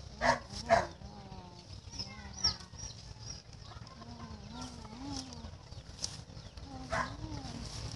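A dog barks twice in quick succession near the start and once more near the end. Fainter animal calls and a short rising bird chirp come in between.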